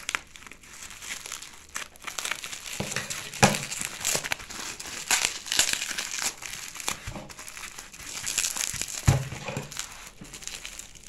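Plastic bubble wrap crinkling and rustling as it is cut with scissors and pulled open, with scattered sharp clicks.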